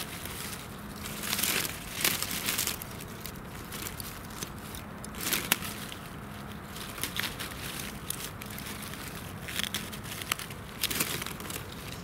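Irregular bursts of rustling and crackling from leaf litter and handling as a honey fungus is cut from the forest floor with a knife.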